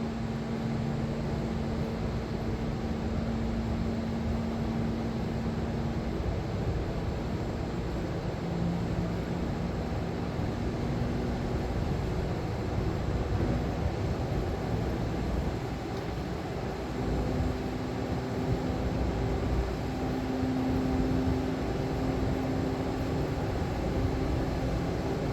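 Building HVAC equipment running after soundproofing: a steady mechanical drone and rushing noise, with a low hum that fades out and comes back.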